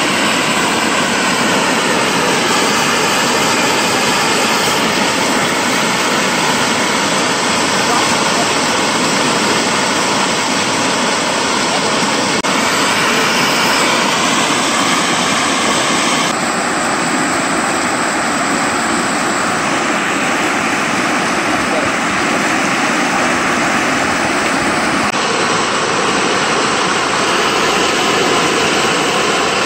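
Water gushing out of a concrete culvert pipe and churning into a canal: a loud, steady rushing noise.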